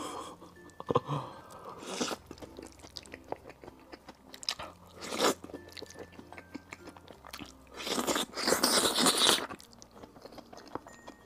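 Close-miked eating of spicy instant noodles with a fried egg: wet chewing and smacking, with several noisy slurps. The longest and loudest slurp comes about eight seconds in.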